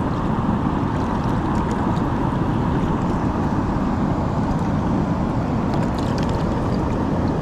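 Steady rush of water pouring through a spillway at full flow.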